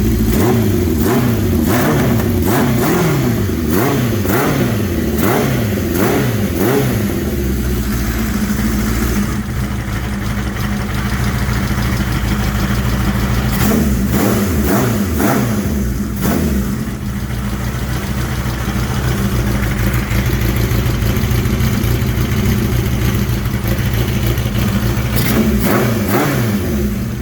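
1983 Suzuki GS four-cylinder motorcycle engine running on all four cylinders, blipped up and down repeatedly in the first several seconds, again in the middle and near the end, and settling back to a steady idle in between. It is freshly restored, with its carburetors not yet adjusted.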